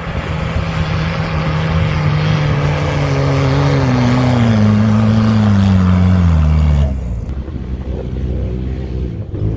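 A motor vehicle engine running loudly, its note falling steadily in pitch over several seconds. About seven seconds in, it drops abruptly to a quieter low rumble.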